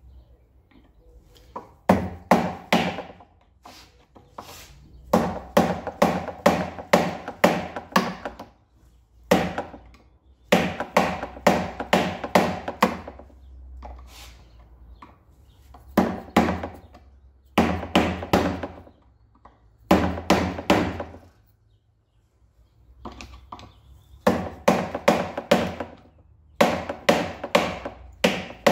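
Hammer blows on a seized part of a Cevik air compressor, struck in quick runs of several blows at about three or four a second with short pauses between runs, each blow ringing briefly. The part is stuck fast and does not budge.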